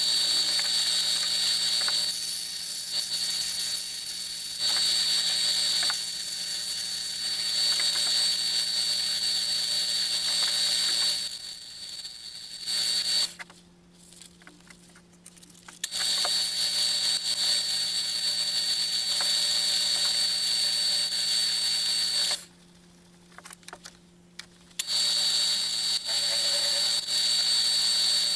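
Metal-working lathe running with a steady high whine as it turns a wooden blank. It shuts off about halfway through and again about three-quarters of the way in, and starts up again a few seconds later each time.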